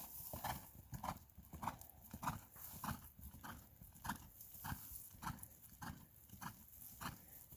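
Horse's hoofbeats on dry grass ground as it trots under a rider, an even rhythm of about two beats a second.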